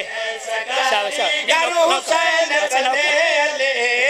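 Men's voices singing the refrain of a devotional Punjabi qasida in chorus, with long wavering held notes.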